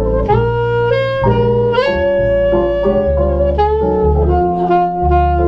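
Jazz trio playing a slow ballad: alto saxophone carrying the melody over plucked upright bass and electric keyboard chords. The saxophone moves through a short phrase of notes and settles on one long held note about four seconds in.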